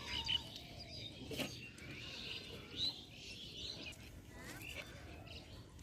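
Small birds chirping, with a single click about a second and a half in.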